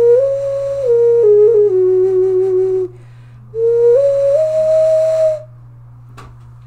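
Homemade strawberry-shaped clay ocarina played in two short breathy phrases of stepped notes. The first phrase moves up, then down to a low held note. After a brief pause, the second climbs to a higher held note.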